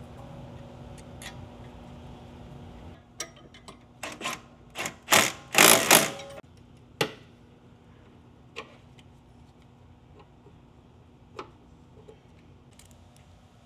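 Milwaukee cordless impact wrench hammering a rear brake caliper bolt tight: a few short bursts, then a longer, louder rattle about five seconds in. A few light metal clinks of hand tools follow.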